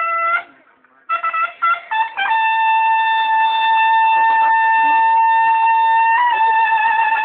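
Bugles of a Mexican banda de guerra sounding a call in unison: a held note cut off just after the start, a brief pause, a few short notes, then one long held note. The pitch shifts slightly about six seconds in.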